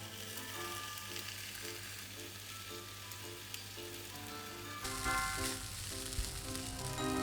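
Kimchi stir-fry mixture sizzling in a frying pan, cutting off suddenly about five seconds in, with light background music.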